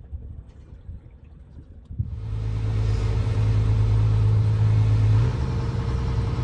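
Fishing boat's engine running steadily under way at cruising speed. It comes in suddenly about two seconds in, over a faint low rumble, and holds a steady hum, with its note changing slightly about five seconds in.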